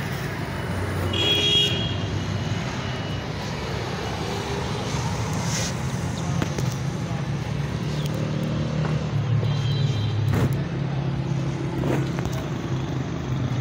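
Road traffic and vehicle engine noise: a steady low hum with a few brief higher-pitched tones and clicks over it, the hum growing fuller near the end.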